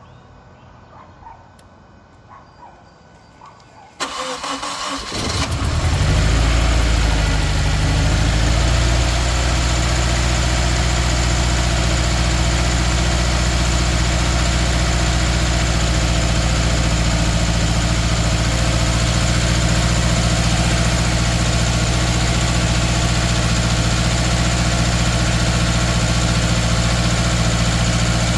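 2013 Subaru Outback's 2.5-litre flat-four engine cranking about four seconds in, catching and then idling steadily, the idle settling a few seconds after it fires. The engine has a misfire on cylinder 3.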